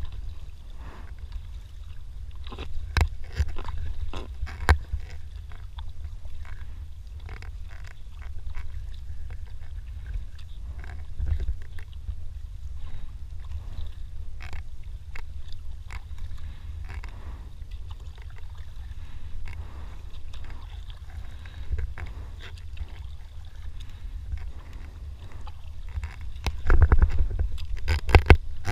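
Paddling a Decathlon Itiwit 1 inflatable kayak on calm water: paddle blades dipping and dripping, with short knocks and scrapes of the paddle against the hull. Underneath is a steady low rumble of wind on the microphone, and a louder cluster of knocks and splashes comes near the end.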